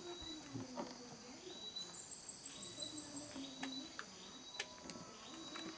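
Tropical forest insects droning steadily at a high pitch, with a short chirp repeating about once a second and a brief higher trill near the middle. A few sharp clicks sound over it.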